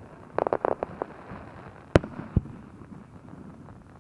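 Aerial fireworks bursting: a quick run of crackles about half a second in, then a sharp bang near two seconds and a smaller one just after.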